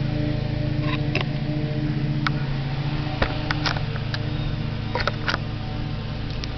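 Handling noise of a hand-held camera being moved about: a scatter of sharp clicks and knocks, about eight of them, over a steady low hum.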